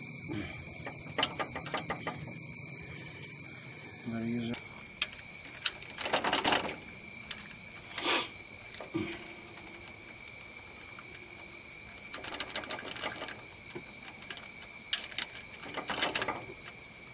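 Scattered metallic clicks and rattles of a hand tool on the rocker shaft bolts of a Cummins ISX engine, as the injector rocker shaft is run down onto the head by hand. They come in short bursts, several seconds apart, over a steady high-pitched tone.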